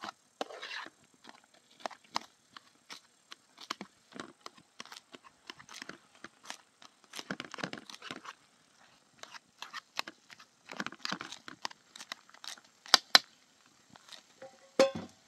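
Irregular rustling, crinkling and light knocks, as of things being handled, with a sharper knock about thirteen seconds in and a short ringing clink near the end.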